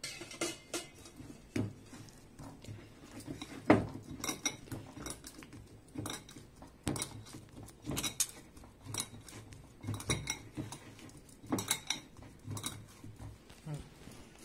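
Hands kneading dough in a cut-glass bowl: irregular knocks of hand and dough against the glass, with bangles clinking on the wrist. The loudest knock comes a little under four seconds in.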